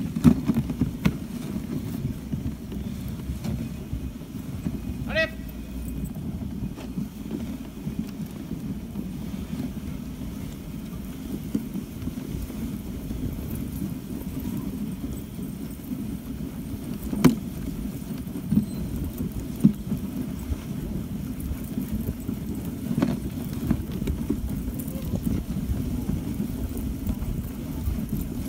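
Dog sled gliding over packed snow behind a husky team: a steady rushing scrape from the runners with scattered knocks and rattles from the sled and harness. A brief high squeak comes about five seconds in, and a sharp knock about seventeen seconds in.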